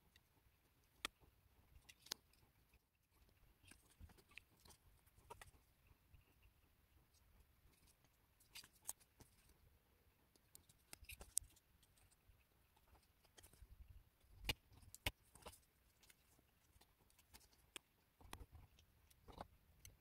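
Mostly quiet, with faint scattered clicks and taps of a utility knife blade and fingers handling a clear plastic Beyblade layer while stickers are pressed onto it. A few of the clicks are a little louder, around the middle of the stretch.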